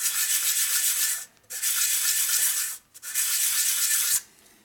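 A metal sealing face from a 1952 Harley-Davidson panhead 4-speed transmission being rubbed flat on an abrasive in three long strokes, each a little over a second, with short pauses between. The face is being lapped flat to take out the scrape marks that let oil leak, so that it seals.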